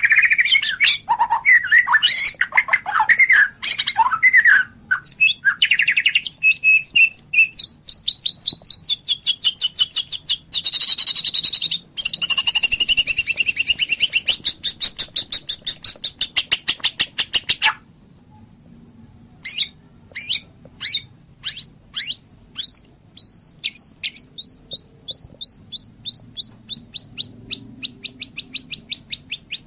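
White-rumped shama singing: a varied run of loud whistled phrases, then about ten seconds of fast rattling trills, a short pause, and a long series of quick repeated down-slurred notes that speed up toward the end.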